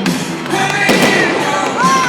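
Loud music playing during a fireworks display, with firework bangs cracking through it a few times.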